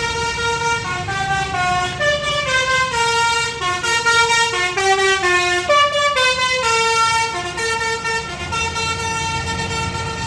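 Indonesian 'telolet' musical bus horn playing a tune: a long held note, then about eight seconds of quick stepped notes rising and falling, settling back onto a long held note near the end, over a low rumble.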